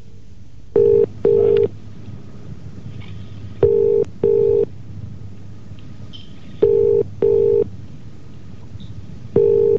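British telephone ringing tone heard down the line: a double ring of two short steady tones close together, repeated about every three seconds, four times, while the call waits to be answered. A steady low line hum runs underneath.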